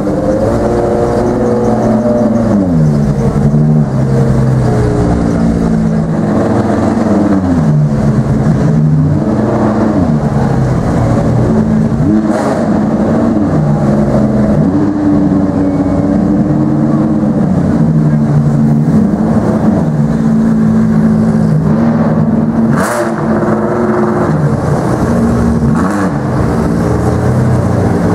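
Ferrari 599XX's V12 engine running and blipped again and again, the pitch rising and falling every two to three seconds.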